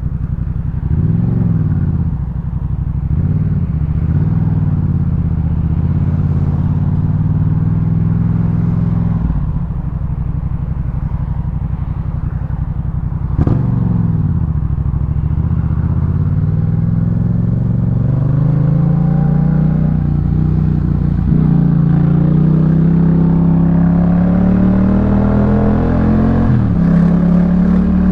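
Yamaha MT-07's 689 cc parallel-twin running through a Jeskap K4 full exhaust while being ridden. The engine pitch dips and recovers a couple of times early on. About halfway there is a sharp crack and the pitch drops, then it rises slowly and steadily as the bike pulls through a long acceleration.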